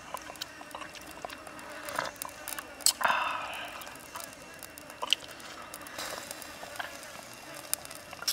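A person sipping from a small porcelain cup, with a short slurp about three seconds in, amid scattered small clicks and taps.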